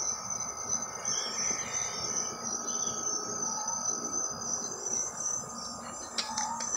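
Crickets trilling steadily in the night over a rough low background noise, with a few sharp clicks near the end.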